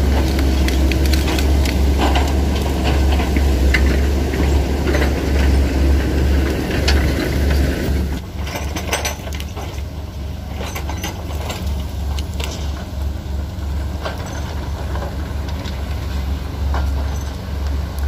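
SANY excavator diesel engines running under load with their hydraulics working, and scattered knocks and cracks from buckets working through mud and broken wood. This is the recovery of a SANY SY135F that has sunk into a ditch. The overall sound drops a little about eight seconds in.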